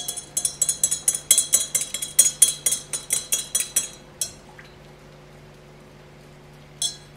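A metal teaspoon stirring vinegar solution in a glass measuring beaker, clinking against the glass about four or five times a second. The clinking stops after about four seconds, followed by two single clinks, one soon after and one near the end.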